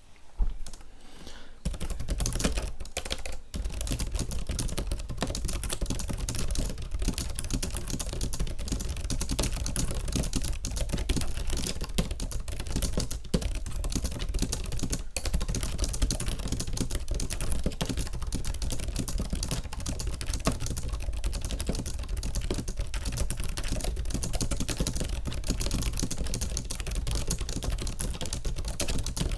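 Fast typing on a Logitech K780 keyboard's scissor-switch keys: a dense, continuous run of key clacks starting about two seconds in, with a brief pause shortly after.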